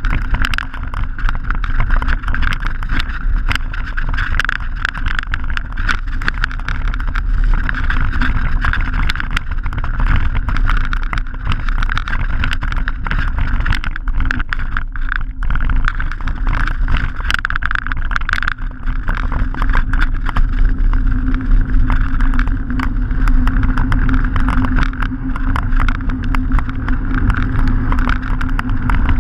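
Mountain bike rolling downhill over a rough gravel track: a steady rumble of tyres and vibration, with many small rattles and knocks from the bike.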